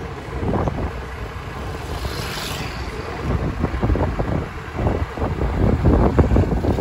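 Wind buffeting the microphone in uneven gusts over the low rumble of a moving vehicle on the road.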